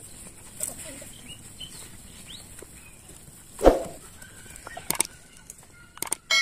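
Faint clucking of chickens in the background. A short loud sound comes as a subscribe-button overlay appears, then two sharp mouse clicks as its cursor presses the button, and a notification bell begins to ring at the very end.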